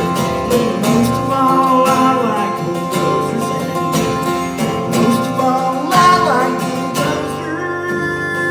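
Acoustic guitar strummed steadily through the closing bars of a country song, with a singing voice at times over it.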